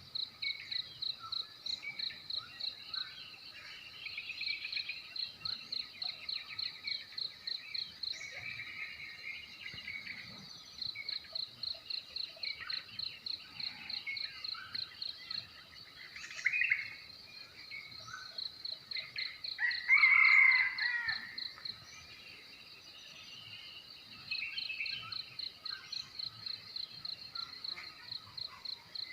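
A cricket chirping in steady, high-pitched pulses, about three to four a second, in runs broken by short pauses. Birds call now and then beneath it, with a louder call about twenty seconds in.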